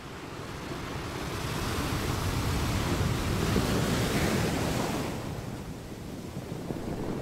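Ocean surf: a wave rises to a peak about four seconds in and washes out, then the next begins to build near the end.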